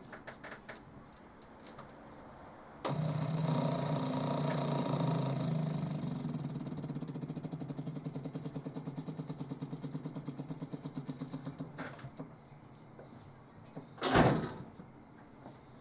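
Newly fitted SU electric fuel pump on a 1966 Morris Minor 1000 switching on about three seconds in. It buzzes fast at first, then goes to rapid, even ticking that fades out after a few seconds as the line fills: how a healthy pump should sound. Near the end there is one brief loud sound.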